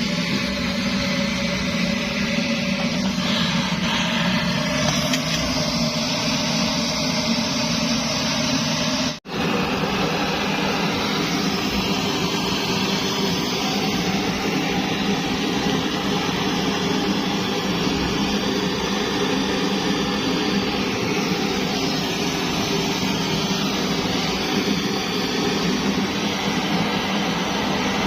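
Kerosene pressure stove (primus) burning with a steady rushing hiss. The sound cuts out for an instant about nine seconds in.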